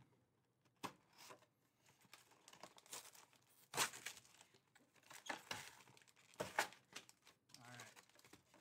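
Foil-wrapped trading card packs crinkling and a cardboard hobby box being handled as its lid flap is opened and the packs are pulled out. It comes as a series of short, faint crackles, the loudest about four seconds in and again about six and a half seconds in.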